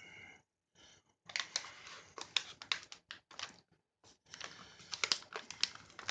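Plastic-foil MRE drink pouch crinkling and clicking as it is handled, in two stretches of irregular sharp crackles with a short pause between.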